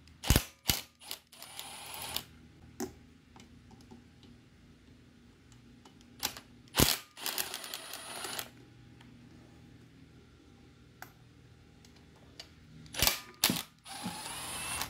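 Cordless impact driver with a long socket extension backing bolts out of a turbocharger's inlet elbow, running in three short bursts of about a second or two each, with sharp clicks of the tool on metal around each burst.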